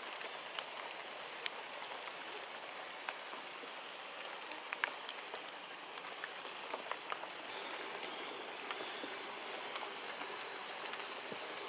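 Forest ambience: a steady hiss with scattered small sharp ticks and clicks, a little fuller about two-thirds of the way through.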